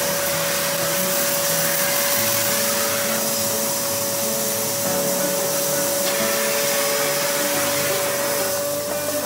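Homstar HS VC2300 Turbo Power vacuum cleaner running, a steady motor whine over the rush of air. The airflow sound thins for a few seconds starting about three seconds in, then comes back full.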